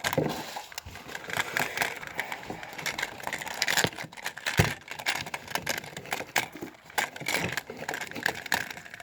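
Toy packaging being handled and opened: plastic and cardboard crinkling and rustling, with many small clicks and taps.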